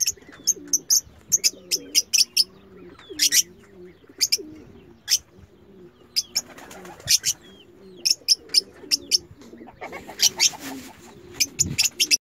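Lovebirds chirping: many short, shrill chirps in quick runs, with a low cooing call repeating about twice a second underneath.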